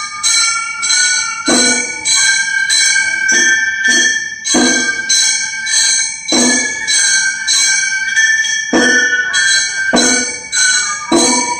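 Gion bayashi festival music played live: a transverse bamboo flute carries a high melody of held notes over small hand-held bronze gongs (kane) struck in a quick, steady clanging pattern, about twice a second, with taiko drum beats every second or two.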